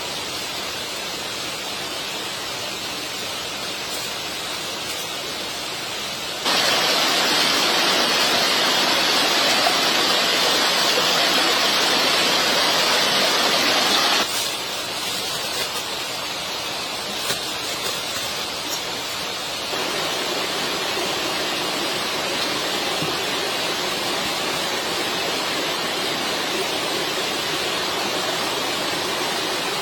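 A steady rushing noise like running water or heavy rain, with no distinct events. It jumps abruptly louder about six seconds in, drops back about fourteen seconds in, and changes character again near twenty seconds, as where separate recordings are cut together.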